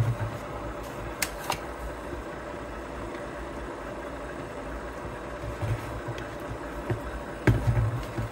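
Stand mixer's motor running steadily on slow speed, its dough hook kneading bread dough. A few light knocks from the proofing basket being handled, with a louder thump near the end.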